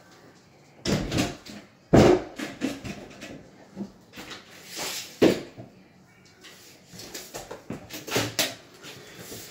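Scattered knocks and clunks from cabinet installation work, with sharper knocks about one, two, five and eight seconds in and softer clicks between.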